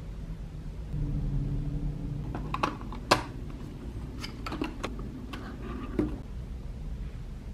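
Clear plastic packaging box of washi tape being handled and opened, giving a series of sharp clicks and taps, the loudest about three seconds in, over a low steady hum.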